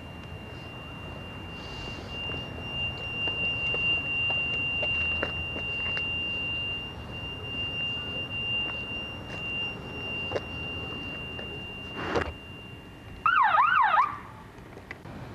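A steady high-pitched whine, a sharp knock about twelve seconds in, then about a second of rapid rising-and-falling electronic siren wail near the end.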